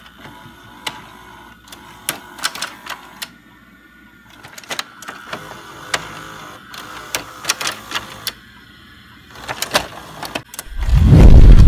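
VHS-style intro sound effect: a VCR's tape mechanism clicking and whirring, with scattered sharp clicks. About a second before the end, a loud deep boom comes in.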